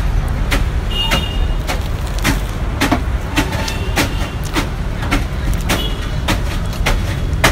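Steady low rumble of road traffic, with scattered sharp clicks and a few short high-pitched tones over it.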